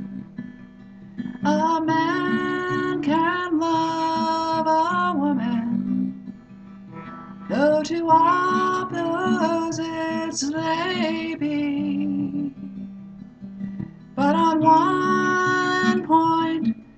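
A woman singing to her own strummed acoustic guitar: three sung phrases, each a few seconds long, with brief guitar-only gaps between them.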